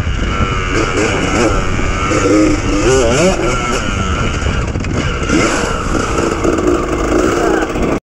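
Honda CR250R two-stroke dirt bike engine being ridden, its pitch rising and falling again and again as the throttle is opened and closed. The sound cuts off abruptly near the end.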